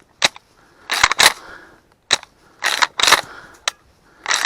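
Footsteps through dry brush and weeds: crunching and snapping stalks, a burst of crackling about every second and a half, with single sharp snaps between.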